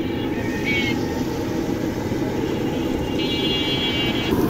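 Busy street noise: a steady low rumble of traffic and voices, with short high-pitched beeps, the longest about three seconds in.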